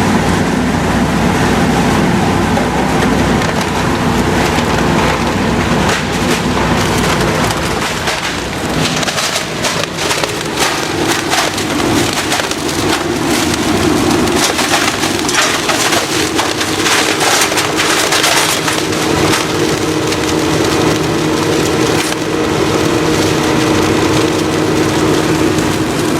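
Industrial shredder, driven by a 30 horsepower three-phase electric motor, running and shredding material, with continuous cracking and crunching over the machine's steady hum. The hum shifts to a higher pitch about halfway through.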